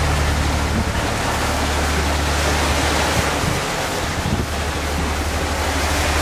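Wind buffeting the microphone and sea water rushing along the hull of a sailing yacht under way, a steady noise with a low hum underneath.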